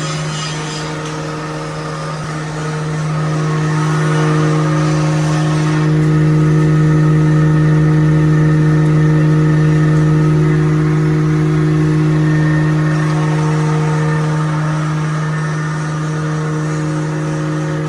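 Wood grinding machine for making sawdust powder, running with a steady hum. It grows louder about three seconds in.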